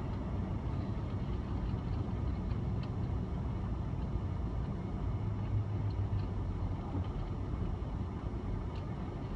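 Steady low road and engine rumble of a vehicle driving down a highway.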